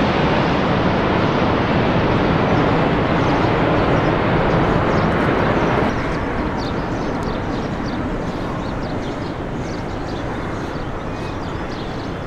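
Jet engine noise of a Boeing 777 airliner on final approach, a loud steady rushing noise with a deep rumble. About halfway through it drops suddenly to a quieter, more distant rumble.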